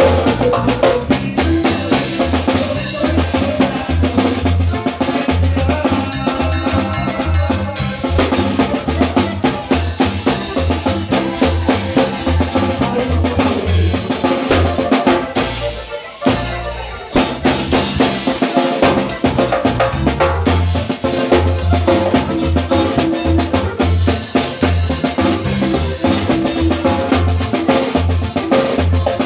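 Norteño music in a fast zapateado rhythm, led by a busy drum kit of snare, rimshots and bass drum over a pulsing bass line. About sixteen seconds in, the band breaks off for a moment, then comes back in.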